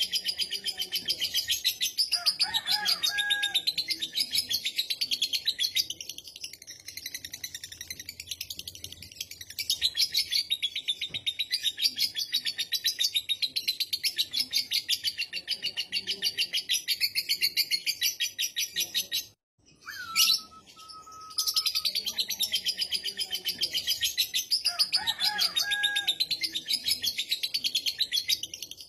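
Lovebird in a long 'ngekek' song: a high, very fast, continuous chatter of rapid notes held for many seconds. About two-thirds of the way through it stops briefly, a short whistle sounds, and the chatter starts again a second or so later.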